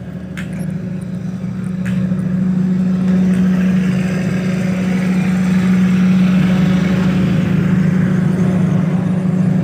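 Mitsubishi generator set's engine running steadily: a constant low hum that grows louder over the first three seconds, then holds.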